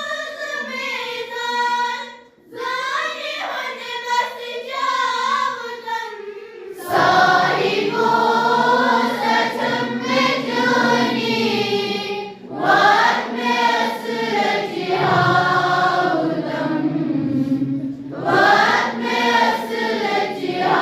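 A choir singing a prayer song on long, held notes. About seven seconds in, fuller and lower voices join and the singing grows louder.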